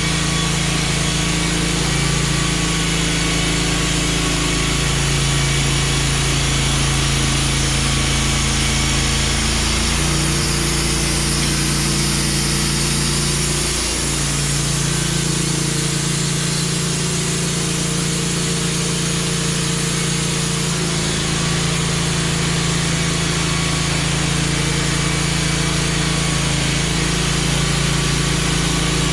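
Wood-Mizer LT15 portable bandsaw sawmill running, its engine working steadily as the Turbo 7 blade cuts through a log into boards. The engine note shifts slightly a few times, around 10, 14 and 21 seconds in.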